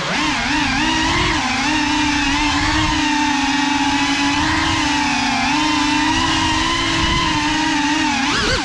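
The brushless motors and propellers of a GEPRC CineLog 35 cinewhoop FPV drone, heard through its onboard camera, give a steady high whine. The pitch wavers with the throttle, and near the end a quick surge rises and falls.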